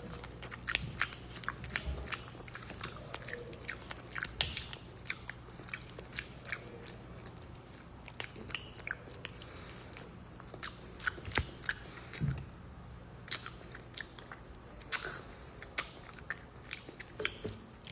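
Eating crab: irregular crunches and clicks of shell being cracked and chewed, scattered throughout.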